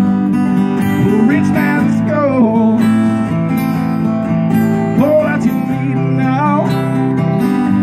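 Two acoustic guitars strummed together in a live duo, playing steady sustained chords.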